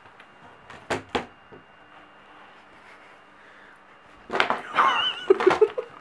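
Two sharp taps about a second in, then near the end the phone is handled, with rustling noise and a wavering high-pitched vocal sound over it.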